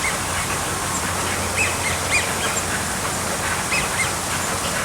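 Wild birds chirping and calling outdoors, with short calls coming every second or so over a steady low background hum.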